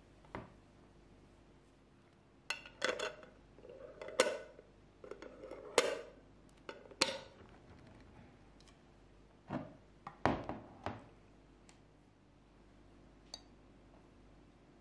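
Metal twist-off lid set on a glass jar and screwed down, clicking and scraping against the glass threads, then the full jar knocked down onto the table a couple of times as it is turned upside down.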